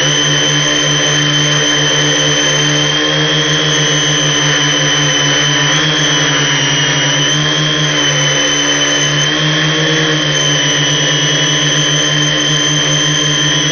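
Multirotor's electric motors and propellers running steadily in flight, a whine made of several tones whose pitch drifts slightly as the throttle changes.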